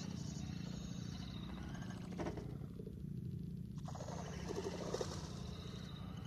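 Low, steady droning chorus of wild animals, with a few faint higher calls about two seconds in and again around four to five seconds.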